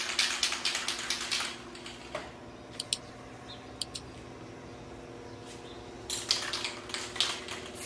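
Rapid light clicks and taps from small objects being handled: a burst in the first second and a half and another near the end, a few single ticks between, over a faint steady hum.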